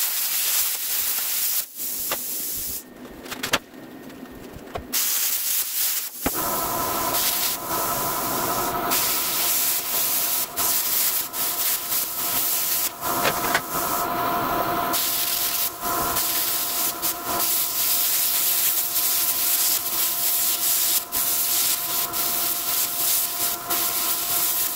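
Plasma cutter cutting through a rusty steel Jeep frame: a loud rushing hiss of air and arc. It stops and starts several times in the first six seconds, then runs steadily with a thin whine over the hiss.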